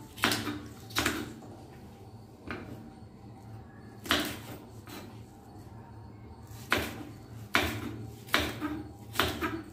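A kitchen knife slicing okra on a wooden chopping board: sharp, uneven knocks of the blade reaching the board, a second or more apart at first and coming faster near the end.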